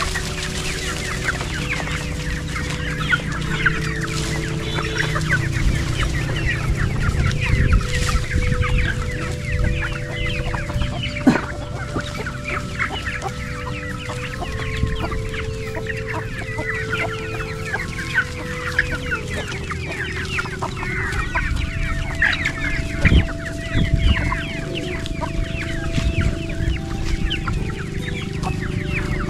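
A flock of free-range chickens feeding on scattered rice, many birds clucking and peeping at once in a dense, overlapping chatter. Steady held tones step slowly up and down in pitch underneath.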